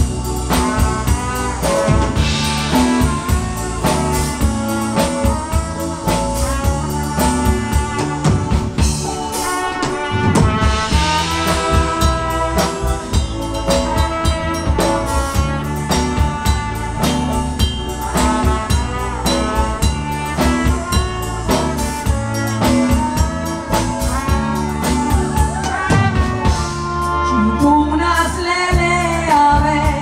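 Live music with a steady drum beat playing an instrumental passage, with keyboard accompaniment; a woman's singing voice comes in near the end.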